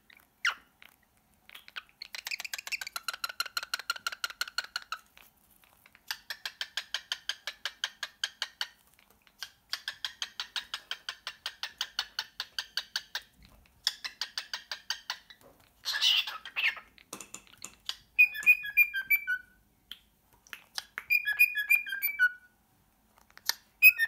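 Cockatiel chattering in long runs of rapid buzzy pulses, then from about three-quarters of the way in whistling short clear notes that step down in pitch, in three little phrases.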